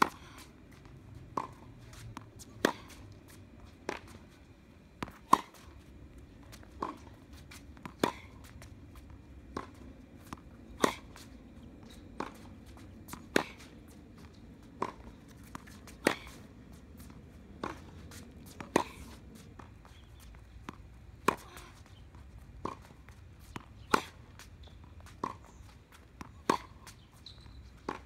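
Tennis rally on a hard court: racket strikes and ball bounces give sharp pops at an even pace, a little over a second apart.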